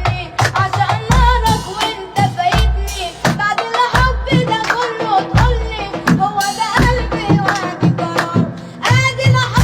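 A child singing an Egyptian Arabic pop song over a backing track, with a deep bass beat about every second and a half and sharp percussion hits.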